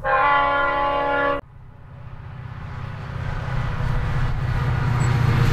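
Train horn sounding a chord for about a second and a half, cut off abruptly, then a train approaching, its rumble and hum growing steadily louder.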